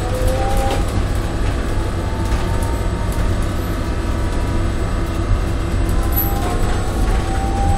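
Interior of a small shuttle bus on the move: a steady low rumble from the engine and road, with a whine that rises in pitch at the start and again near the end as the bus picks up speed.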